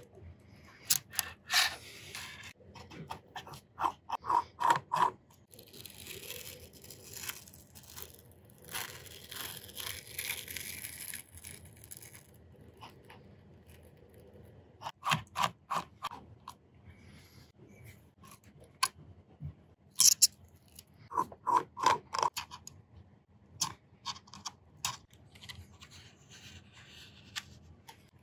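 Metal tweezers and a spudger clicking and scraping against an iPad Mini 4's frame and internal parts as the speaker connectors and antenna cables are pried loose. Scattered sharp clicks and taps, with a longer stretch of scraping from about six to twelve seconds in.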